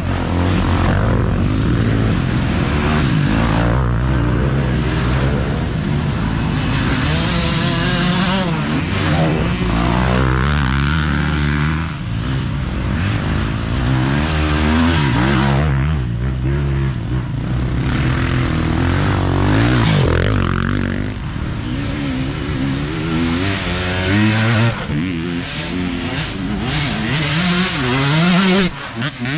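Dirt bike engines revving hard, their pitch rising and falling with the throttle and gear changes, as several off-road motorcycles race up the trail and pass close by one after another.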